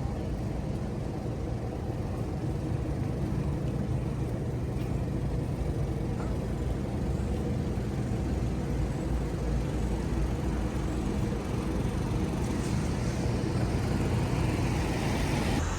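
City traffic on wet streets: a steady low rumble of passing vehicles, with tyre hiss swelling near the end as a car comes closer.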